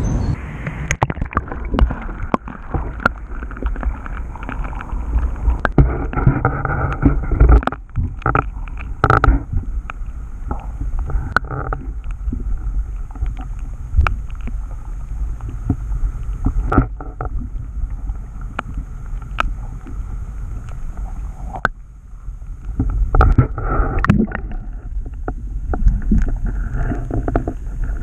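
Muffled rumbling and gurgling of river water heard through a camera held under the surface, with many small clicks and knocks.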